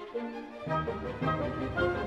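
Background music. A fuller, louder section with bass comes in just over half a second in.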